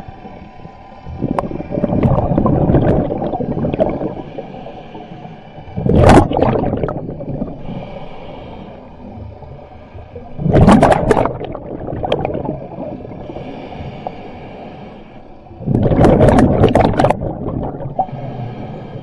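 A scuba diver breathing underwater: four loud bubbling rushes of exhaled air from the regulator, about every four to five seconds, with fainter hissing inhalations between them.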